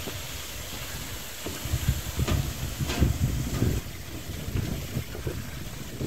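Footsteps on a footbridge deck mixed with wind buffeting the microphone: an uneven low rumble, heaviest in the middle, with a few sharper steps.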